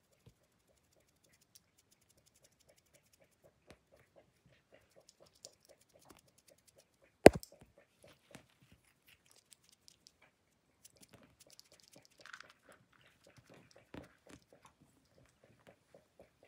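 A Ragdoll kitten playing on plush toys and fabric mats: faint soft scuffling and scratching, with one sharp knock about seven seconds in, the loudest sound.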